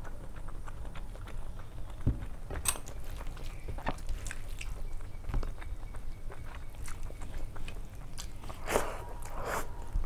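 Close-miked eating sounds: chewing with wet mouth clicks, and fingers mixing rice and dal on a steel plate. Two louder wet sounds come near the end.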